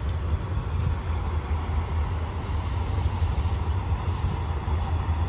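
Diesel locomotive engine running steadily with a deep throb while it pushes a crane car during shunting.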